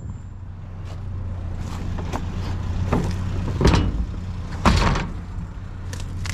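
Vehicle engine running steadily as the vehicle drives off, with a few sharp knocks and rattles over it, the loudest about four and a half seconds in.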